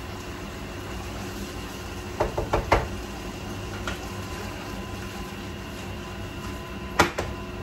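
Steady hum of a commercial kitchen exhaust hood fan, with a few light clicks and taps about two to three seconds in and one sharp knock near the end, as containers, utensils and the sauté pan are handled on the stainless range.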